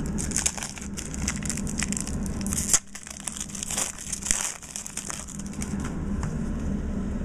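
A trading-card pack's wrapper crinkling and tearing as it is opened by hand. It is a dense run of crackles, with one sharper crack a little under three seconds in.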